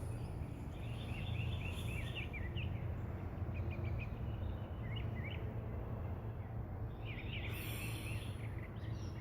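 Small songbirds chirping in quick runs of short notes, a flurry about a second in, a few scattered calls, and another flurry near the end, over a steady low background hum.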